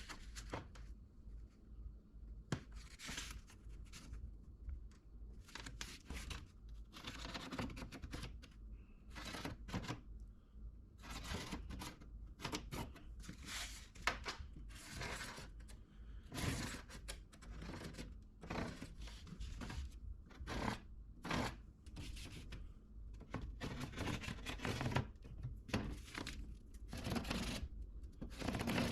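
Expanded steel mesh being cut by hand, a series of irregular rasping strokes, some sharper and louder than others.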